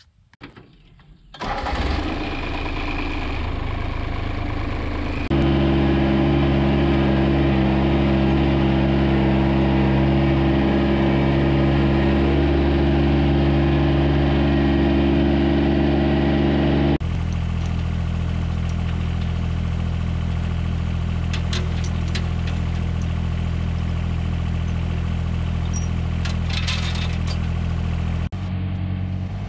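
A John Deere compact loader tractor's engine running steadily, heard from the driver's seat. It gets louder about five seconds in and drops back a little past the middle. A few light clicks come in the later part.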